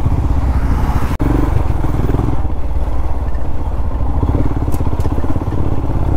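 Motorcycle engine running steadily on the move, a dense low rumble that drops out for an instant about a second in.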